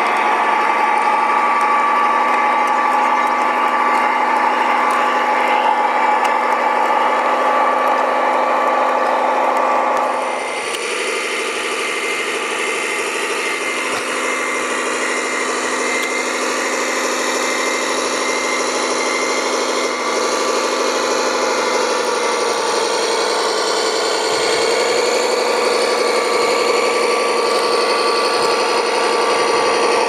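Radio-controlled tracked dumper's drive motors and gearboxes whining steadily as it drives. The whine changes suddenly about ten seconds in and later dips briefly in pitch.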